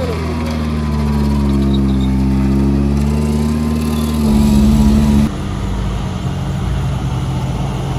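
Off-road 4x4 vehicle engine running steadily at low revs, its pitch wavering slightly. It gets a little louder after about four seconds, then drops sharply about five seconds in and runs on more roughly.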